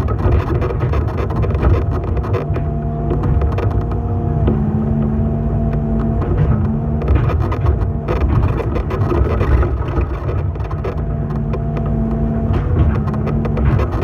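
Excavator's diesel engine and hydraulics running, heard from the operator's cab, with the pitch of the engine's whine stepping up and down a few times as the boom and bucket work. Occasional sharp knocks and clanks run through it.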